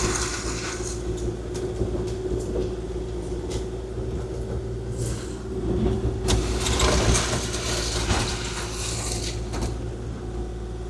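Kubota KX040-4 compact excavator's diesel engine running steadily under work, with scattered clanks and scrapes as the blade pushes gravel.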